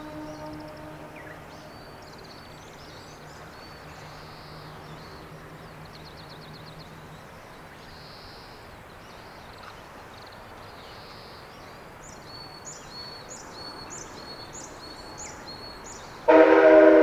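A railway horn's blast dies away about a second in, echoing across the mountain valley, followed by a long quiet stretch with small birds chirping. Near the end a new, much louder train horn blast starts abruptly, several notes sounding together.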